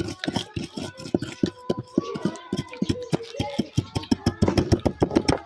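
Tamarind pods being handled and peeled by hand: brittle shells crackling and snapping in a rapid, irregular run of clicks, with faint voices underneath.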